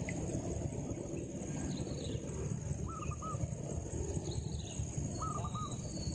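Birds calling in short three-note phrases, twice, with fainter chirps between, over a steady low rumble and a constant high insect drone in the riverside air.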